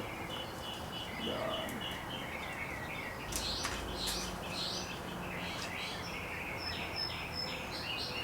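Small birds chirping and twittering in quick repeated calls.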